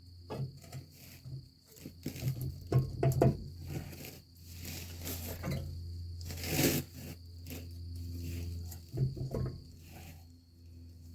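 Hand work on metal parts: scattered knocks, clinks and rattles of tools and parts being handled, with a rustling rush about six and a half seconds in. A steady low hum and a thin steady high tone run underneath.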